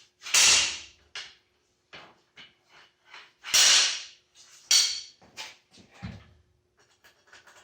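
Metal knocking and clanking from work on a distributor seized in a Ford 351 Cleveland block: three louder hits, about half a second in, around three and a half seconds and near five seconds, with lighter clicks and taps between.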